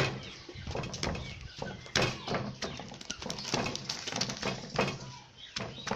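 Wooden pestle pounding shredded green papaya in a clay mortar for som tam: dull knocks about twice a second, some louder than others.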